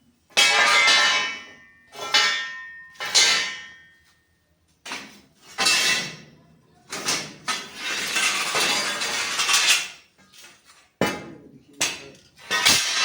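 Steel angle iron clanging: a series of sharp metal strikes that ring on briefly, as the cut angle pieces are hammered and handled, with a longer scraping stretch of about two seconds near the middle.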